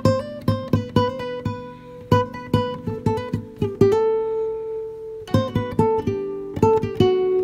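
Background music: an acoustic guitar playing quick plucked notes, with one note held for over a second about four seconds in.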